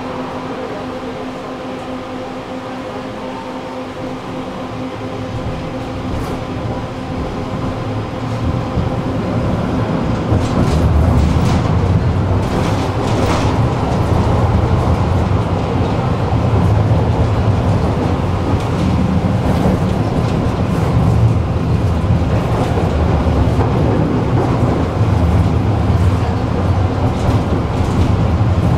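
Tram running on its rails. A steady hum at first, then the low rumble of wheels on track swells over the first ten seconds or so as the tram gathers speed. After that it runs steadily, with scattered clicks and rattles from the rails.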